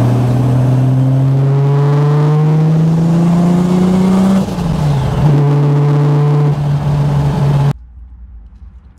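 Nissan Skyline R33's tuned turbocharged straight-six pulling hard, its engine note climbing steadily for about four seconds. The note then dips briefly and holds steady at a lower pitch, until the sound cuts off suddenly near the end.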